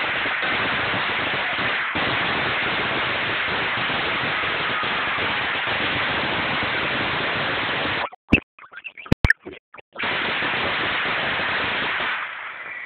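A long string of firecrackers going off in a dense, unbroken crackle. About eight seconds in it breaks off into a few separate sharp bangs, then the crackle resumes for about two seconds and dies away near the end.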